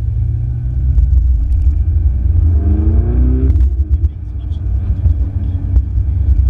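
Ferrari 488 GTB's twin-turbo V8 and road noise heard from inside the cabin as a steady low rumble. About two and a half seconds in the engine note rises under acceleration, then cuts off sharply about a second later.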